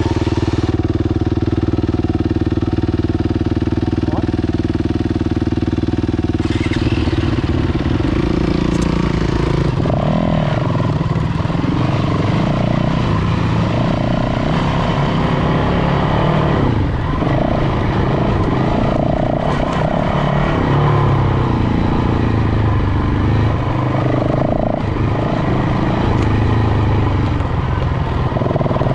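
Off-road motorcycle engine idling steadily, then pulling away about eight seconds in. It runs on along a dirt trail with the revs rising and falling as it rides.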